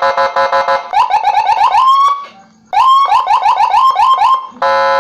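Electronic vehicle siren unit sounding its tones through its horn speaker: a rapid pulsing tone, then two runs of quick rising chirps with a short gap between them, and a brief steady horn blast near the end.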